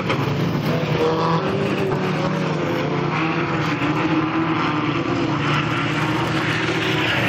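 Several sport compact race cars running hard around a dirt oval. Their engine notes overlap, and each rises and falls in pitch as the cars accelerate down the straights and lift for the turns.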